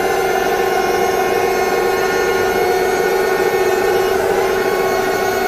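Heng Long RC tank's version 6 sound unit playing a simulated tank engine idling through its speaker: a steady electronic hum of several held tones.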